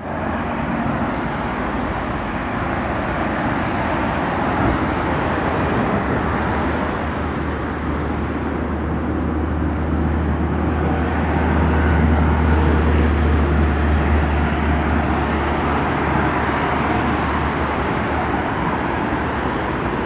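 Steady noise of a moving car: engine and tyre noise with a continuous low drone.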